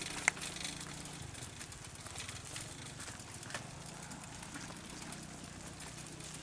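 Footsteps of a person walking on a wet village path, a sharp click about a third of a second in being the loudest sound. Under them runs a low, steady motor hum that drops away about a second in and comes back a couple of seconds later.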